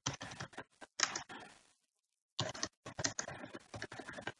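Computer keyboard typing in quick runs of keystrokes, with a short break about two seconds in.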